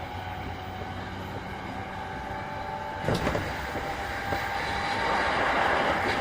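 E233-3000 series electric commuter train heard from inside the car while running: steady wheel-and-motor rumble with a faint steady tone. A sharp clack about three seconds in is likely a rail joint or point. A rushing noise builds louder over the last second or so.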